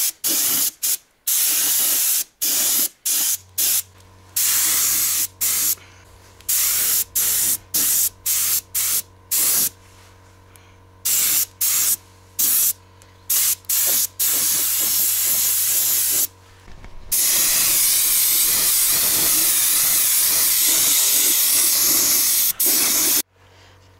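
Compressed-air paint spray gun hissing in many short bursts as the trigger is pulled and released, then spraying continuously for about the last six seconds. A steady low hum runs under the bursts and stops about two-thirds of the way in.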